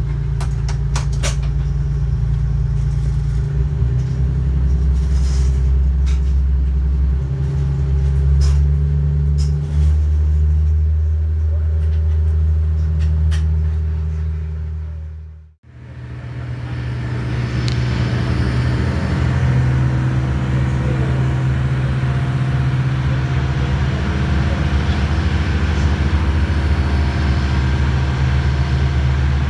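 Motorboat engine running steadily under way, a deep drone heard from inside the wheelhouse, with scattered clicks and knocks in the first half. The sound dips out briefly about halfway through and comes back the same.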